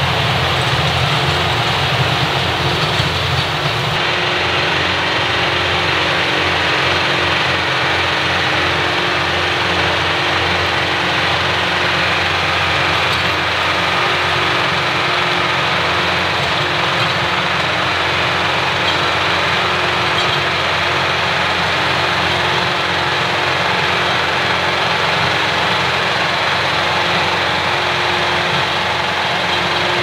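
John Deere 4066R tractor's diesel engine running steadily under load while driving a rear-mounted rotary tiller through soil.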